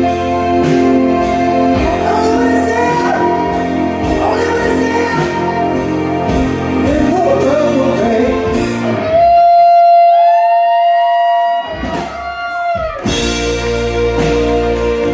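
Live rock band with drums, electric guitars and keyboard playing behind a singer. About nine seconds in the band drops out, leaving one long held note that bends at its end, and the full band comes back in about two seconds before the end.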